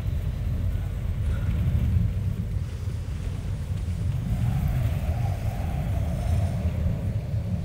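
A steady low rumble, with a faint higher hum joining it a little over halfway through.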